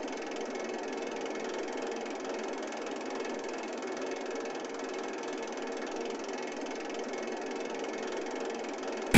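Steady machine-like running noise, even and unbroken with a faint hum in it, ended by a short sharp click right at the end.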